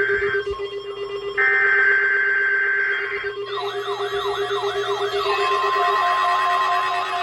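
Emergency Alert System data header: screeching two-pitch digital tone bursts. One ends just after the start, and a second lasts about two seconds. About three and a half seconds in, a siren-like alarm of fast repeating sweeping tones begins, later joined by a steady alert tone, over a continuous lower buzzing tone.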